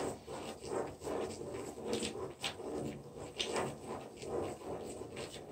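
Ballpoint pen scratching on paper as a small plastic spirograph gear is turned round inside the toothed ring of a plastic gear ruler, with light irregular clicks and scrapes a few times a second.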